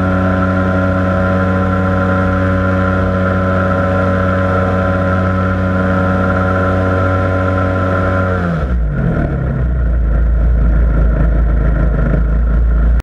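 Model aircraft engine running steadily at high speed. About eight and a half seconds in, its pitch drops quickly and a low rumble takes over.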